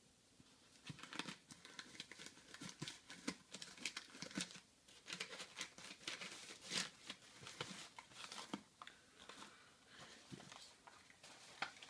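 Packing material crinkling and tearing as a wrapped can is unpacked by hand: a dense run of irregular crackles that starts about a second in and thins out near the end.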